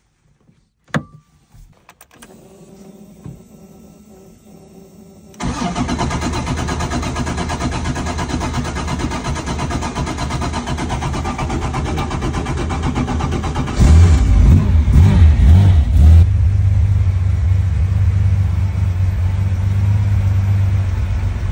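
1971 Porsche 911 ST's air-cooled flat-six being started: a click and a faint steady hum, then the engine catches suddenly about five seconds in and runs. It is blipped several times a little past the middle, the loudest part, then settles to a steady idle.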